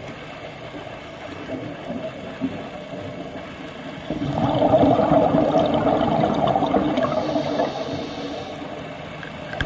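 Underwater noise picked up by a diver's camera: a steady muffled rush, with a louder spell of a scuba regulator's exhaled bubbles starting about four seconds in and lasting about four seconds.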